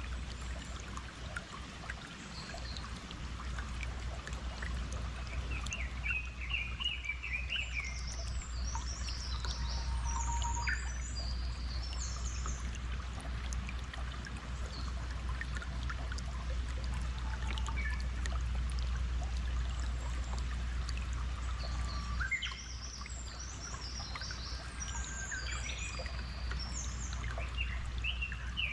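Flowing stream water running steadily with a low rumble, and small birds chirping and singing over it, in two busier spells: about a quarter of the way in and again near the end.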